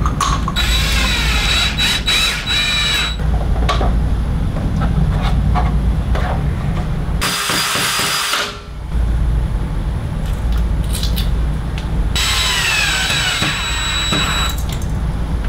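Cordless drill with a concrete bit boring pilot holes into a stucco wall. The motor whines in bursts of a few seconds, its pitch sagging and recovering as the bit bites, with a shorter, harsher burst midway. A steady low rumble runs underneath.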